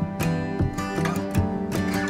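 Background music led by a strummed acoustic guitar, with a steady rhythm of strums.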